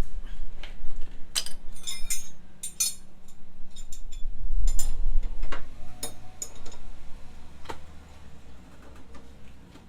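Metal tools clinking and knocking in handling, several strikes with a short bright ring in the first few seconds, then fewer, sparser clicks.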